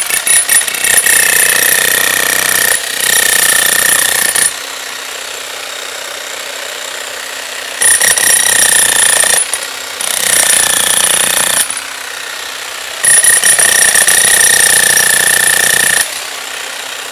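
Bosch 11316EVS electric demolition hammer with a straight point bit hammering into a chunk of concrete. It comes in five loud bursts of rapid blows, with quieter stretches between them, and the piece cracks under it.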